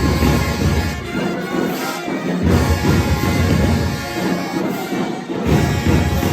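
Marching band playing loud brass and drums, with deep low notes and cymbal crashes about once a second.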